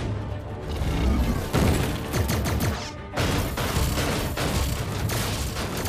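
Dramatic cartoon action music mixed with heavy crashing and booming impact effects of giant robots stomping and a car being crushed, with a brief break about halfway through.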